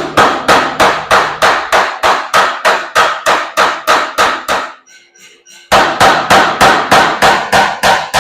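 Power hammer forging a bar of Damascus steel: rapid, even blows at about four a second. The run stops about 5 s in, gives way to a few lighter taps, and a second run of full blows starts about a second later.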